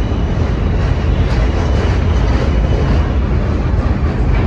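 Vintage subway train running past close along a station platform: a steady, loud rumble of its cars on the rails.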